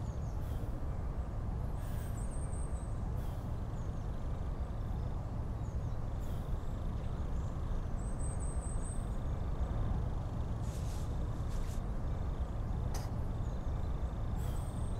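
Steady low outdoor ambient rumble and hiss, with a few faint clicks.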